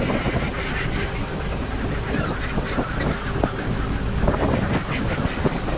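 A large flock of gulls calling over the water, against the steady low rumble of the fishing boat's engine and wind on the microphone.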